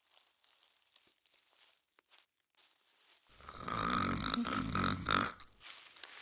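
A person snoring: one long, loud snore of about two seconds, starting about halfway through, after faint room hiss with a few soft clicks.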